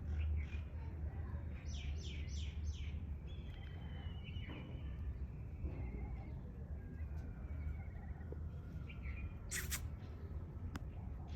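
Small birds chirping, with a quick run of four high chirps about two seconds in and thin whistled calls after, over a steady low hum; a single short sharp noise comes near the end.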